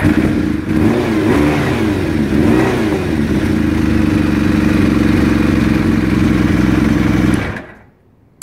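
Kawasaki ZX750 J1 inline-four motorcycle engine running right after starting: revs rise and fall a few times over the first three seconds, then it idles steadily. About seven and a half seconds in it is switched off and runs down.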